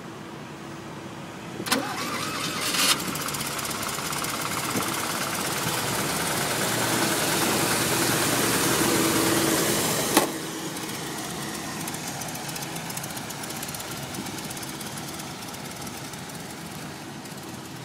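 Polski Fiat 126p 650E's 652 cc air-cooled two-cylinder engine is cranked by the starter, catches after about a second and keeps running, growing gradually louder. About ten seconds in there is a click, and the sound drops to a quieter steady run.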